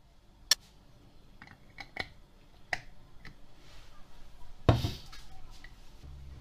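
Glass jar knocking and clinking against a plate as it is handled and lifted away: a few light, sharp clicks, then one heavier knock about three-quarters of the way through.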